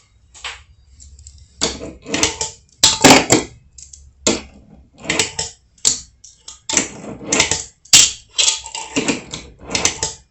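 Fingerboard being popped and landed on a wooden ramp: repeated sharp clacks of the board's tail and wheels striking the wood, in clusters about every second.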